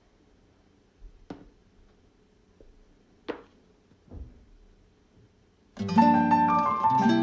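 A few isolated soft taps over quiet room tone, then background music of plucked strings starting near the end and running on.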